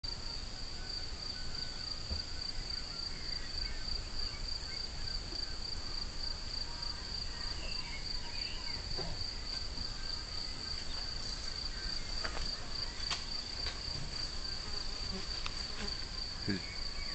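An insect trilling steadily in one continuous high-pitched, evenly pulsing note, over a low background rumble.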